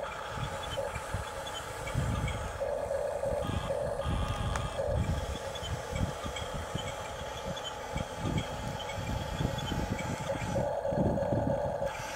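Huina radio-controlled toy bulldozer running as it pushes sand, its motors and gearing humming with a steady pulsing drone over an uneven low rumble.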